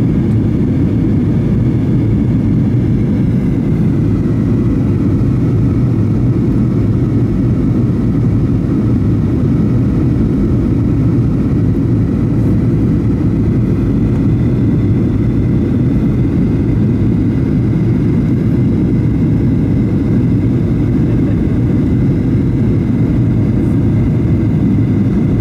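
Steady cabin drone of a Boeing 737-800 in flight, heard inside the cabin from a window seat behind the wing: a deep, even rumble of airflow and CFM56-7B engine noise with a faint steady whine above it, during the descent toward landing.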